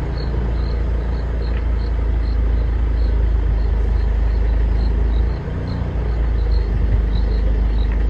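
A vehicle engine idling with a steady low rumble that dips briefly about five and a half seconds in, while insects chirp in a faint, regular pulse about two or three times a second.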